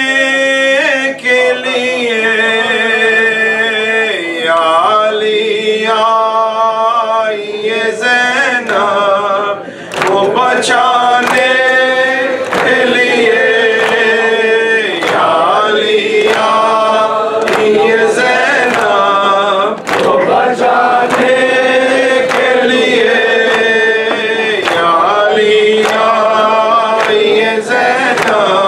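A man's voice chanting a noha, an Urdu mourning lament, into a microphone, with long held notes and other voices joining in. From about ten seconds in, regular sharp slaps keep time with the chant.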